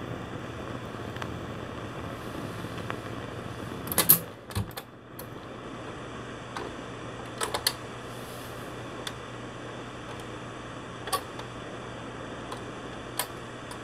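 Turntable running on after the end of a 45 rpm vinyl single: soft surface noise and a steady hum from the run-out groove, broken by a few sharp clicks and clunks, loudest about four seconds in. These are the tonearm mechanism lifting and swinging back off the record.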